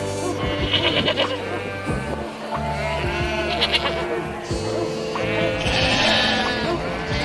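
Sheep bleating about three times, wavering calls about a second, three and a half seconds and six seconds in, over background music with held low notes.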